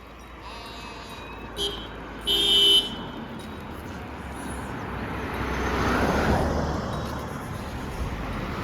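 A vehicle horn toots twice, a short blip and then a longer, louder blast. A vehicle then passes by, its road noise swelling and fading away.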